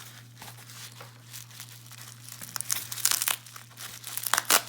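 Packing material crinkling and rustling as it is handled by hand, with louder crackly bursts about three seconds in and again near the end.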